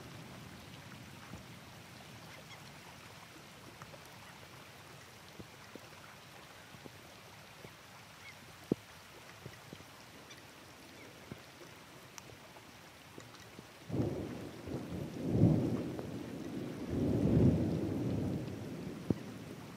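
Steady rain, with scattered drops ticking close to the microphone. About fourteen seconds in, a roll of thunder rumbles, swelling twice over some five seconds before it fades.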